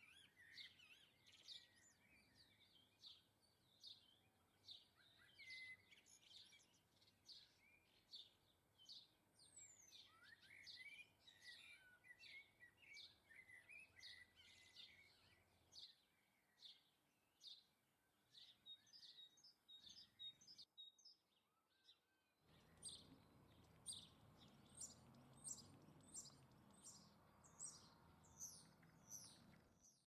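European goldfinches twittering: rapid high chirps, several a second, over a faint hiss. The calls stop briefly about twenty-one seconds in, and after that the background hiss is louder.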